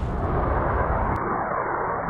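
Firework rocket motor strapped to a toy airliner, burning with a loud, steady rushing hiss that turns duller a little over a second in.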